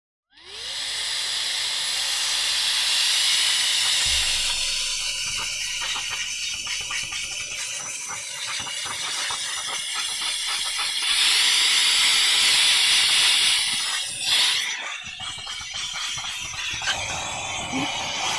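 Small handheld electric vacuum-blower in blow mode, its motor spinning up with a short rising whine and then blowing a steady hiss of air through a brush attachment to clear dust off a graphics card. The airflow gets louder for a couple of seconds past the middle.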